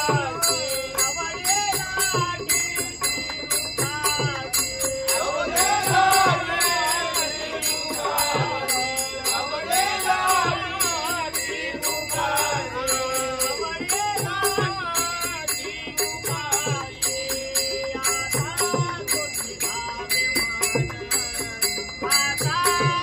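A group of voices sings a Marathi abhang, a devotional song, with small hand cymbals clashing in a quick steady rhythm and a low beat underneath.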